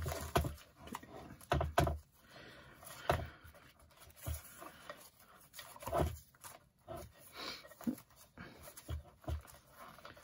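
Irregular knocks and rustling as a small wooden box of paper labels is set down and rummaged through.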